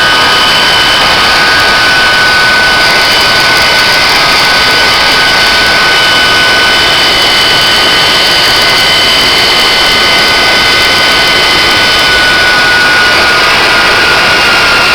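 Turbojet engine of a railroad jet snow blower running on a rail car: a loud, steady jet roar with a high whine that drops slightly in pitch near the end.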